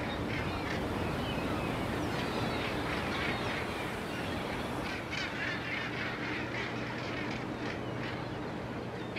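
A large flock of gulls calling over and over, many short cries overlapping, above the steady low hum of the trawler's engine.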